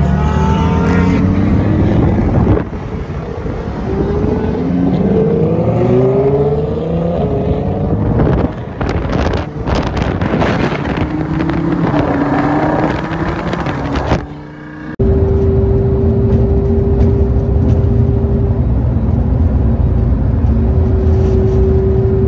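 Straight-piped Lamborghini engines accelerating hard, the pitch climbing and dropping back several times as they shift up, then crackling and popping from the exhaust. About two-thirds of the way through it changes to a steady, even engine drone heard from inside the cabin while cruising.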